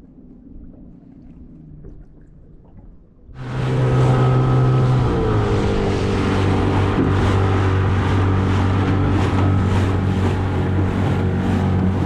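Small fishing boat's motor comes in suddenly about three seconds in and runs steadily as the boat gets under way. Its pitch is a little higher at first and settles lower a second or two later. Before it there is only faint wind and water.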